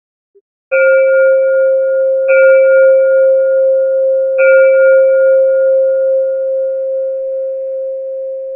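Singing bowl struck three times, about one and a half to two seconds apart. Each strike rings on in one steady, clear tone with higher overtones that die away sooner. The main tone slowly fades and is still sounding at the end.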